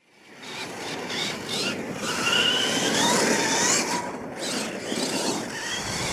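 R/C monster truck driving on a dirt course, its drivetrain whining up and down in pitch several times with the throttle over the rough noise of the tyres on dirt. The sound fades in at the start.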